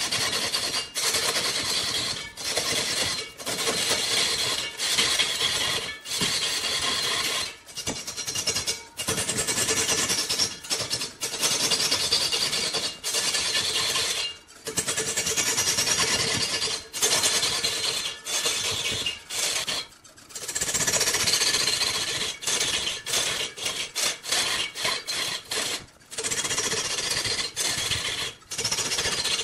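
A turning tool cutting into red incense wood spinning on a large wood lathe: a loud, rough scraping hiss broken by frequent short gaps.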